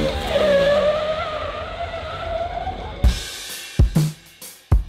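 A KTM sport motorcycle's engine running on a track, its pitch falling at first and then holding fairly steady. About three seconds in it cuts to music with a few heavy bass-drum hits.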